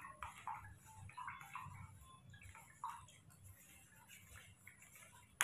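Light, irregular ticking and clinking of a plastic spoon against a plastic cup as milk is stirred, with one sharp click near the end.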